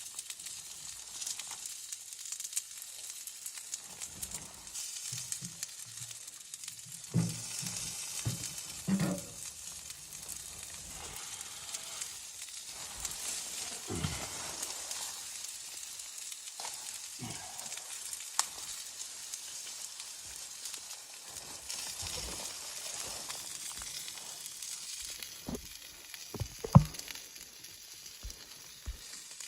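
Food frying in a pan: a steady sizzle, with scattered knocks and scrapes and one sharp knock near the end.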